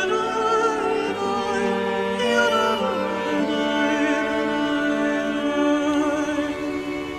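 Background music of sustained, slow-moving singing voices, held notes with vibrato over one another in a choral or operatic style.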